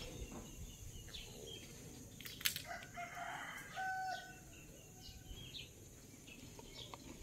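A rooster crowing once, about three seconds in, ending on a held note; a single sharp click comes just before it.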